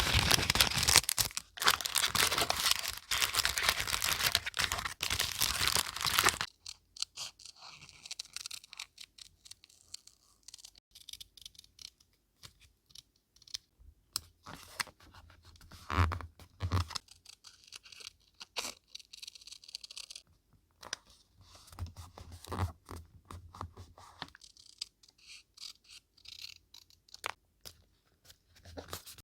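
Paper being torn and crumpled, dense and loud for about the first six seconds. After that come sparse, quieter rustles and light taps of paper and craft pieces being handled.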